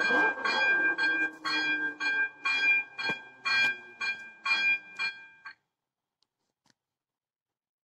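Electronic level-crossing bell (AŽD type 02) ringing in even strokes, about two a second, while the crossing's barriers lower. It stops about five and a half seconds in, once the booms are down.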